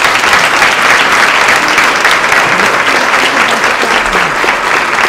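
Audience applauding: steady, dense clapping from a large room full of people.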